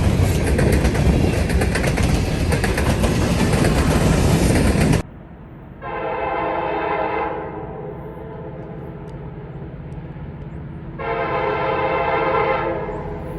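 A train rolling past close by, its wheels making steady rail noise and clatter, cuts off abruptly about five seconds in. A diesel locomotive's multi-chime air horn then sounds two long blasts a few seconds apart over the low rumble of its engine.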